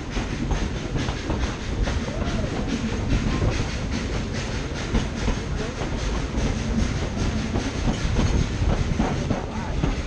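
Passenger coaches of a steam-hauled narrow-gauge excursion train running along the track: a steady rumble with a constant rattle and clatter of wheels and car bodies, heard from an open-sided coach.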